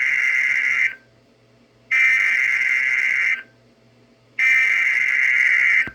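Emergency Alert System SAME header tones on NOAA Weather Radio: three identical harsh, buzzy digital data bursts of about a second and a half each, a second apart, the first already under way. They are the coded header that marks the start of a new alert broadcast.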